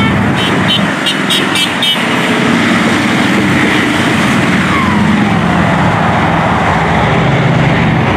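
Touring motorcycles and highway traffic passing below, with a steady engine rumble and tyre noise. About a second in comes a quick run of short high beeps.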